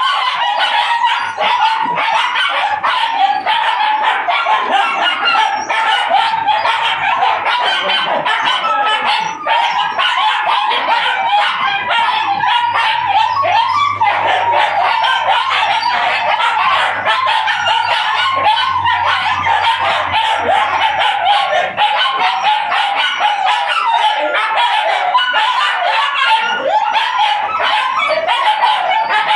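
A litter of puppies barking and yipping nonstop, many high-pitched cries overlapping with no break.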